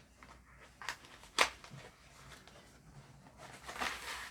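Light handling of cosmetics packaging: two short clicks or taps, then a brief rustle near the end.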